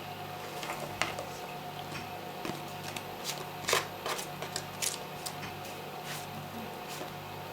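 A spoon stirring a thick mixture in a mixing bowl: irregular scrapes and clicks, the loudest about a second in and near the middle, over a steady low hum.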